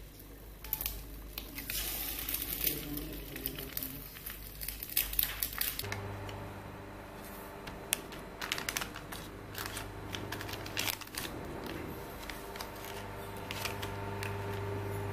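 Foil and plastic instant-noodle seasoning sachets crinkling and crackling as they are handled, over a steady hum that starts about six seconds in. For the first few seconds, food sizzles in a frying pan.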